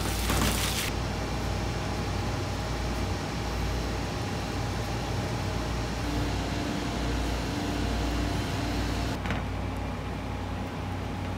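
Steady low machinery hum in a commercial kitchen. For about the first second there is wet squishing and crackling from gloved hands kneading minced chicken in a steel bowl.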